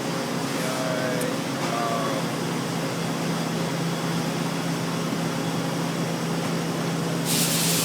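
Mitsui Seiki horizontal CNC machining center running with a steady mechanical hum, which grows slightly stronger about three seconds in. Near the end a loud hiss starts.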